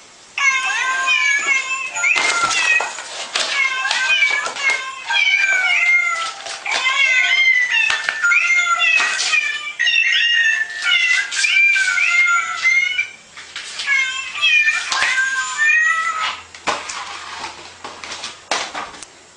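Musical greeting card playing a quick tune made of recorded cat meows, with a few sharp knocks mixed in. The meowing tune stops partway through, plays again briefly, then cuts off.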